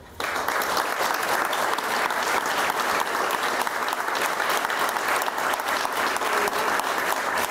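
A group of people applauding: many hands clapping at once. It starts suddenly just after the opening and keeps up steadily.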